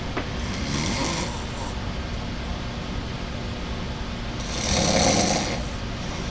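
A man snoring in his sleep: two long snores about four seconds apart, the second louder.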